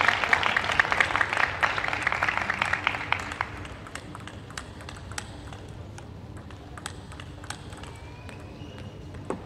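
Audience applause after a point, fading out over the first three and a half seconds, then scattered light ticks of a table tennis ball being bounced, with one sharper tick near the end.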